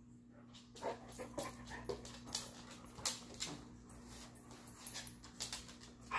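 Brittany dog moving about on a hard laminate floor: scattered light clicks of its claws, with soft panting. A short, falling whine comes right at the end.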